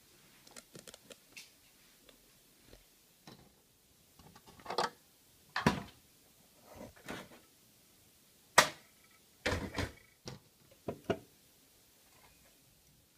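Irregular handling noises: scattered light clicks, knocks and scrapes of objects being moved about, with one sharper knock past the middle followed by a quick cluster of knocks.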